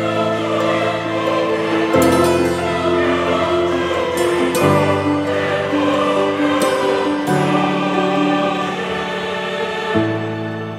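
Slow background music of sustained chords that change every two to three seconds.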